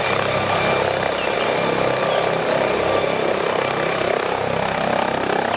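MD Explorer helicopter hovering: steady rotor noise with a thin high turbine whine, holding even throughout.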